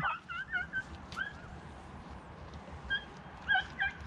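A hunting beagle whining and yipping in short, high-pitched calls: a quick cluster at the start, one about a second in, and a few more near the end.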